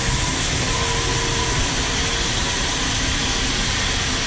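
Grain bin unloading equipment running steadily: the underfloor auger and elevator carrying shelled corn out of the bin and into a truck, a continuous mechanical rumble with a few faint steady tones.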